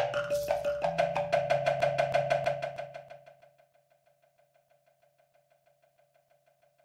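Electronic music from a software instrument that turns webcam images into sound: a quick, even run of short pitched percussive notes over a low sustained bass. It fades out about three seconds in, leaving only a faint ticking pulse.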